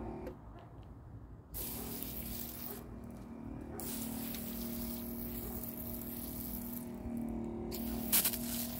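Water spraying from a garden hose nozzle onto a tree's base and the dirt around it, a steady hiss that picks up about a second and a half in.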